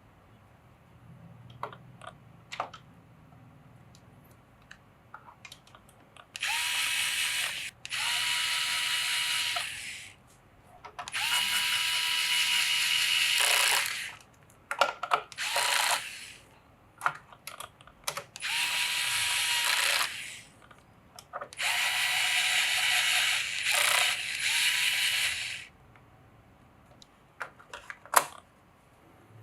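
Small electric screwdriver motor whirring in about six bursts of one to four seconds each, as screws are driven, with light clicks and taps of handled parts between the bursts.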